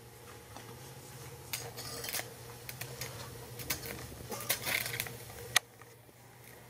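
Scattered clicks and light knocks from a hand working the front-panel controls of a vintage Collins tube transmitter, over a low steady hum that stops with a click about five and a half seconds in.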